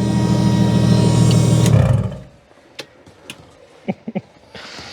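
Nissan Stagea's RB straight-six held at high, steady revs, which cut off suddenly about two seconds in. A few light clicks and knocks follow.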